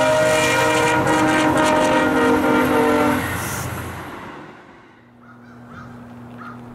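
Air horn of a VIA Rail F40PH diesel locomotive blowing a chord of several steady tones as it nears a level crossing, cutting off about three seconds in. After that the sound fades down to faint.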